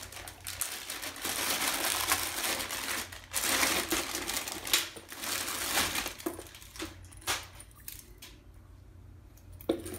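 Clear plastic bag crinkling as it is torn open and an exercise band set is pulled out of it, then a few light metallic clicks from the band's clips in the last few seconds.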